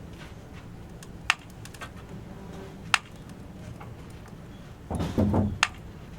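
Two sharp knocks about a second and a half apart, then a louder, lower clatter about five seconds in, over a steady low hum.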